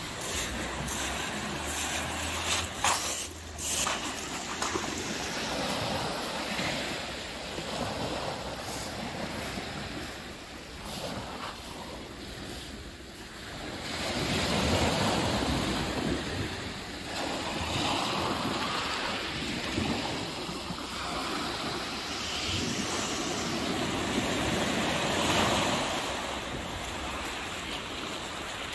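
Sea waves washing onto a stony beach, swelling louder about halfway through, with wind buffeting the microphone. A few sharp clicks sound about three seconds in.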